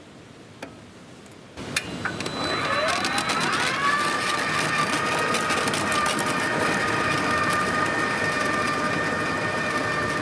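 Honda hybrid snowblower driving on its battery-powered electric crawler motors with the engine off. About two seconds in, a motor whine rises in pitch as the machine speeds up, then holds steady, with rapid ticking over it.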